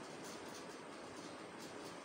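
Faint steady hiss of room tone, with no distinct events.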